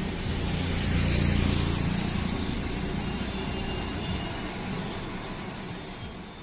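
Red LHB passenger coaches of an express train rolling past at speed: a steady rumble of wheels on rails, loudest about a second in and then slowly fading.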